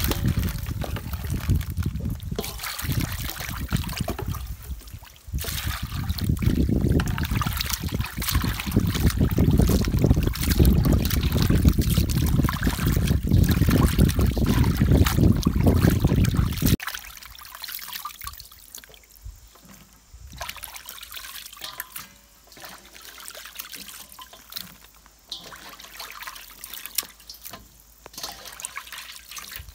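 Hands sloshing and rubbing raw chicken wings in water in a stainless steel bowl, a loud, uneven splashing. It cuts off suddenly a little over halfway, leaving only faint drips and light knocks as the washed wings drain.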